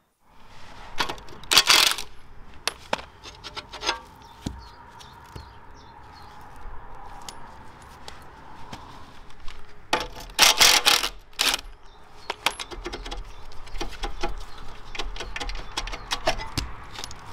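Metal clinks and clatter of steel bolts and parts being handled while the bottom rollers are unbolted from a mini excavator's track frame. There are two short bursts of rapid hammering from a cordless impact wrench, about two seconds in and again about ten seconds in.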